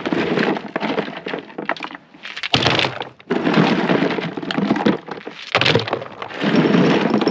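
Handfuls of red lava rock dropped into an empty black plastic 32-gallon trash can, clattering against the plastic bottom and each other. It comes as several pours of a second or two each with short gaps between, laying a rock drainage layer in the bottom of the can.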